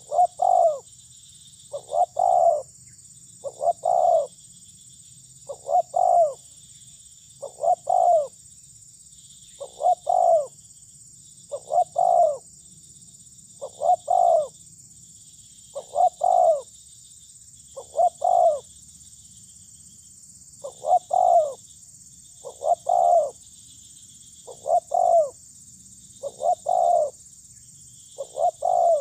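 Spotted dove cooing: a two-part call, a short note then a longer one, repeated about fifteen times at roughly two-second intervals, with one longer pause about two-thirds of the way through.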